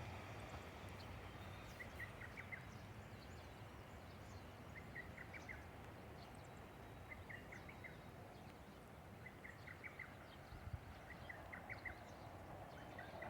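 Faint outdoor background hum with a small bird calling: a quick run of three or four chirps, repeated every two seconds or so.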